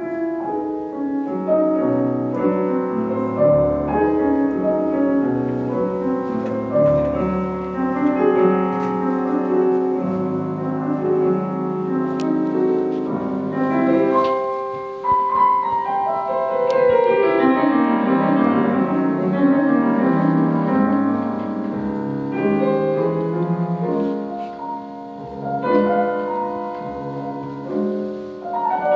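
Steinway concert grand piano played solo in a classical piece, with a fast descending run about halfway through and a softer passage near the end.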